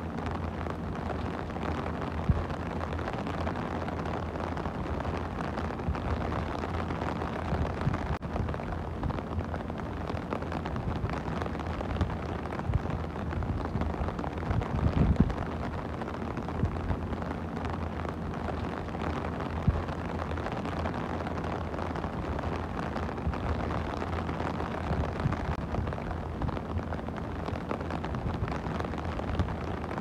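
Rain falling steadily on a clear plastic umbrella canopy: a dense, even patter with scattered louder drops, a cluster of them about halfway through.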